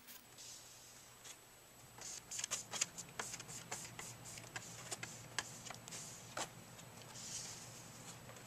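Small squeegee scraping across window film on a plastic window pane to push out air bubbles: a run of irregular light clicks and short scrapes starting about two seconds in.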